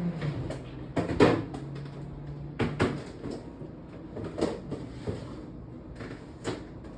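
Kitchen clatter: a string of knocks and bumps as things are handled and set down, with a low steady hum for the first two seconds.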